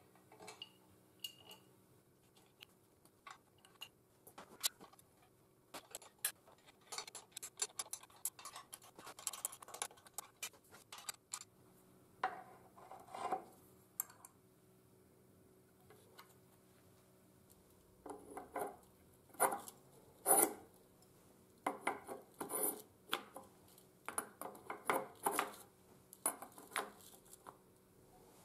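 Light metal clinks, taps and scrapes of hand assembly: steel fittings and a wire wheel brush being fitted onto an electric motor's shaft and tightened. The clinks come irregularly in clusters, busiest in the second half.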